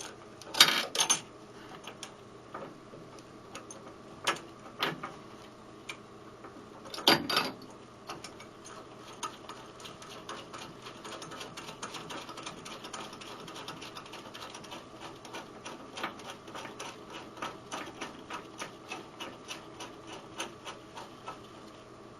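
A bolt being fitted and turned into a plastic lathe steady rest: a few sharp knocks of parts being set in place in the first eight seconds, then a long run of quick light clicks, several a second, that stops near the end.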